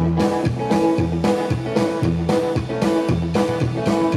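Live rock and roll band playing an instrumental passage: upright double bass, drum kit and electric guitar with a steady driving beat, no vocals.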